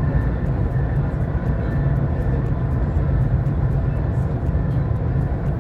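Dubai Metro train running between stations, heard inside the carriage: a steady low rumble with a faint constant whine.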